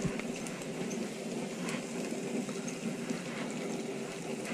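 Fish cake patties frying on a hot flat-top griddle: a faint, steady sizzling hiss with a low hum under it and a few soft clicks.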